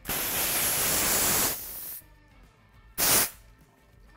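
Compressed air hissing from an air-line fitting as it is pushed onto the port of a GF Diastar 10 fail-close pneumatic valve actuator, pressurising it to open the valve. The loud hiss holds for about a second and a half and then fades, and a second short burst of air comes about three seconds in.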